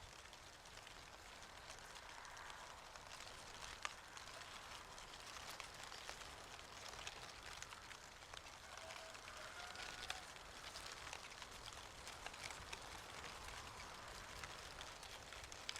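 Falling leaves pattering and ticking faintly and irregularly over a soft steady hiss, with a couple of sharper clicks. A brief faint tone sounds about halfway through.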